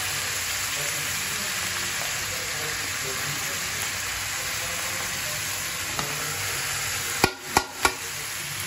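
Sliced onions frying in hot oil in a kadai, sizzling steadily. Near the end come three sharp knocks of a utensil against the pan as more sliced onions go in.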